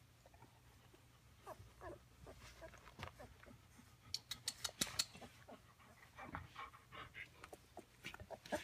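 Three-week-old Bernedoodle puppies nursing: quiet wet suckling and smacking clicks, thickest around the middle, with a few short, soft squeaks.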